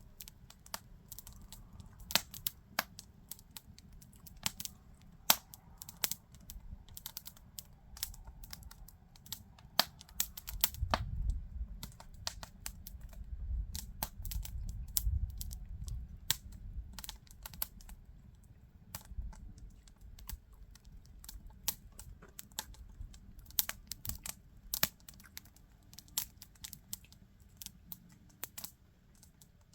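Wood campfire crackling, with frequent irregular sharp pops and snaps. A low rumble swells from about eleven to sixteen seconds in.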